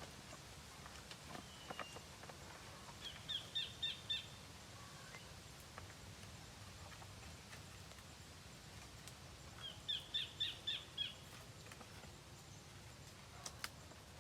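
A bird calling outdoors: two short runs of rapid high chirps, about five or six notes each, several seconds apart. A faint steady low background noise and a few soft clicks lie beneath.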